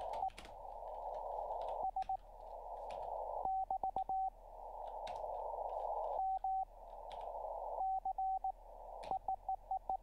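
Morse code (CW) from an amateur station on the 40-metre band, heard through a WebSDR: a steady beep keyed in dots and dashes, with band hiss swelling up in the gaps between characters. Near the end comes a quick run of dots, the sender's error signal after a mistake. Faint computer-keyboard clicks sound throughout.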